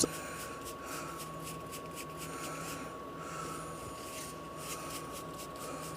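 Baseball trading cards being handled: soft rustling and light clicks of cards sliding against each other, over a steady faint electrical whine and hum.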